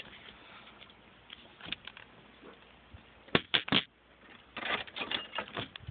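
Clicks and rattles of a car's ignition key and locked steering wheel being worked to free the steering lock: three sharp clicks about three and a half seconds in, then a cluster of lighter rattling clicks.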